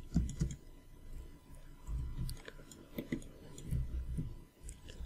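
Scattered computer mouse clicks and keyboard taps, with soft low thumps in between.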